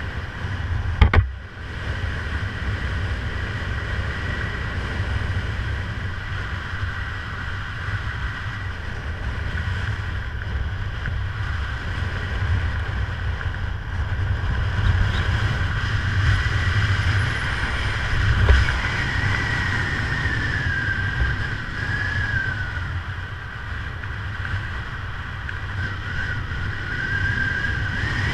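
Wind rushing over the camera microphone during a descent under a parachute canopy: a steady low rumble with a thin, wavering whistle above it. Two sharp knocks about a second in.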